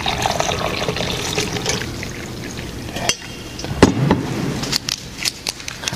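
Hot water poured from a kettle into a coffee mug, trickling and splashing, followed by a few light clicks and ticks against the mug in the second half.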